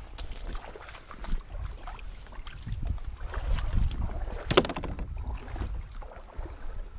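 Wind rumbling on a handheld microphone, with scattered clicks and crunches and a sharp clatter of clicks about four and a half seconds in.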